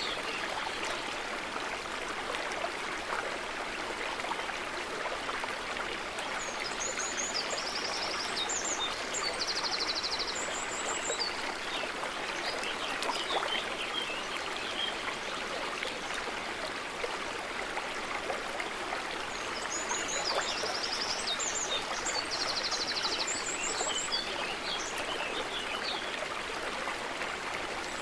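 A stream running steadily with an even rush. A songbird sings a high, trilled phrase twice, once about eight seconds in and again about twenty seconds in.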